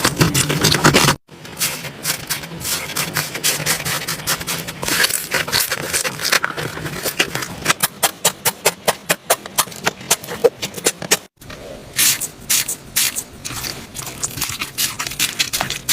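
Slime being squished and pressed by hand, making rapid wet clicking and popping crackles. Two brief gaps, about a second in and near eleven seconds, mark jumps between clips.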